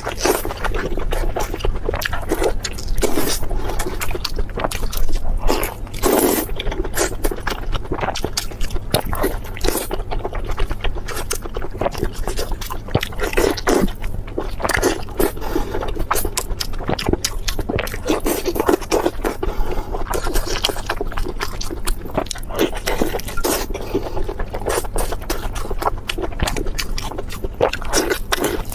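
Close-miked eating sounds: continuous chewing with dense, rapid crackles and wet smacks.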